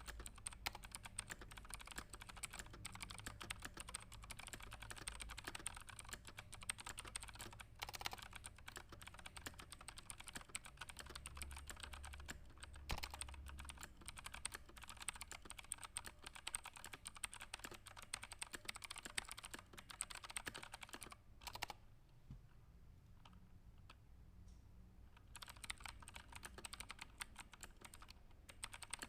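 Fast typing on a computer keyboard: a dense run of key clicks that thins to a few scattered keystrokes for a few seconds about three-quarters of the way through, then picks up again.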